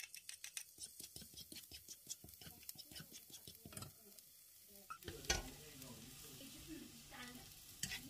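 Chopped garlic crackling and sizzling in hot oil in a nonstick frying pan as it is sautéed, with a plastic spatula knocking and stirring against the pan from about five seconds in.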